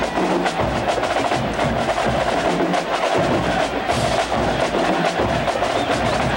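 Marching band drumline playing a fast, busy rhythm, with rapid drum strokes over recurring bass drum hits.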